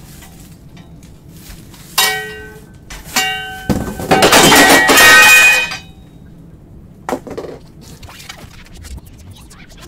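Steel tube legs of a metal bistro chair frame knocking and clanking together as they are fitted, each strike ringing on briefly. Two ringing knocks are followed about four seconds in by a loud metal clatter lasting about two seconds, with a smaller knock near the end.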